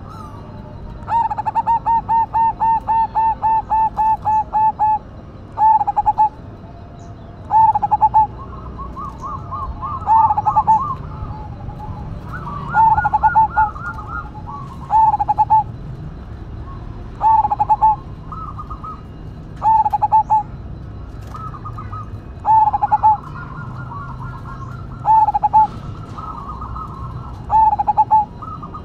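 Zebra dove (perkutut) cooing. It opens with a rapid run of about a dozen short coos, then gives short coo phrases every two to three seconds. Fainter, higher-pitched calls come in between.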